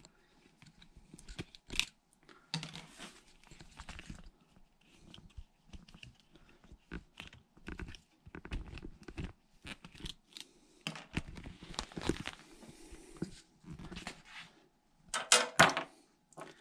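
Clear plastic tubing being handled: the coiled hose rubbing, rustling and clicking irregularly as it is unwound and its tie is undone, with a few sharper clicks near the end.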